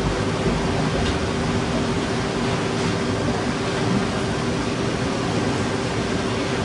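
Steady hiss with a constant low hum.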